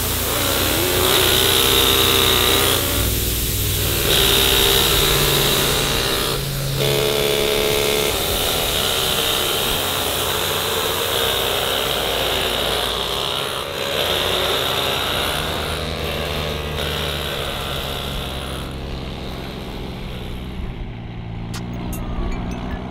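Engines of farm vehicles running in a field, a mix of truck, tractor and bus, steady and getting somewhat quieter near the end.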